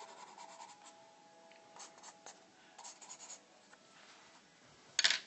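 Pencil scratching on sketchbook paper in a few short bursts of light strokes, then a brief louder rustle near the end as the sketchbook is handled.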